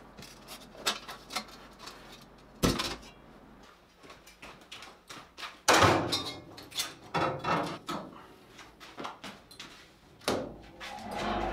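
A string of irregular knocks and clunks of objects being handled, the loudest about three and six seconds in.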